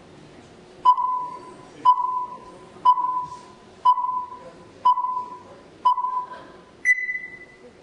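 Film-leader countdown beeps: six beeps at one pitch, about one a second, each starting with a click and fading out, then a higher-pitched beep near the end, over a faint steady hiss.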